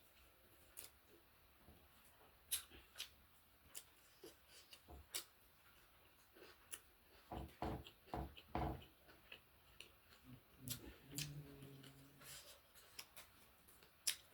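Faint close-up eating sounds: irregular sharp clicks of chewing and mouth noises, with a cluster of low thumps a little past the middle and a brief low hum near the end.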